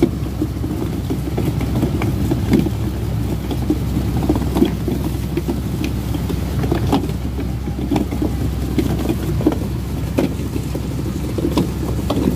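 Purse-seine fishing boat's engine running steadily under way, with water rushing along the hull and irregular short knocks.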